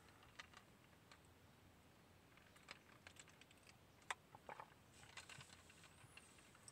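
Near silence with faint, irregular clicks and taps, the sharpest about four seconds in and a small cluster soon after.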